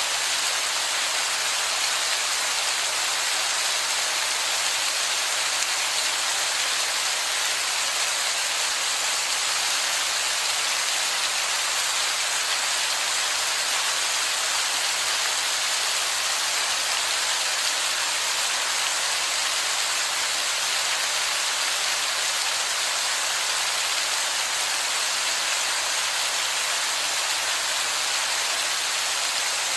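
Heavy rain falling onto a wet rock face: a steady, even hiss of falling water with no breaks.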